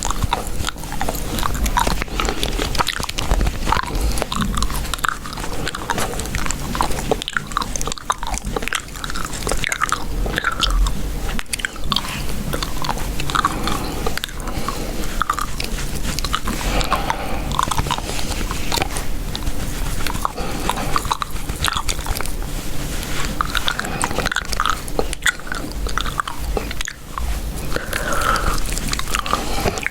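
Chewing gum close to a sensitive microphone: continuous wet, sticky smacking and clicking of the mouth.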